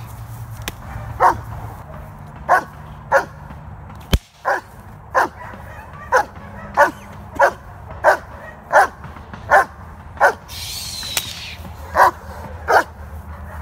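A young German Shepherd barking over and over in short, sharp barks, about one every two-thirds of a second with a brief pause near the end, while a decoy with a bite sleeve and stick agitates it during protection bitework.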